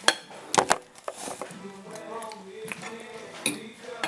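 Three sharp knocks on a glass tabletop within the first second and a lighter knock near the end, over background music.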